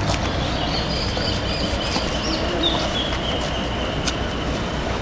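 A vehicle engine idling with a steady low, pulsing hum, most likely the ambulance at the loading doors. A thin, high, wavering squeak runs from about one second in to near the end, and a few light knocks come through.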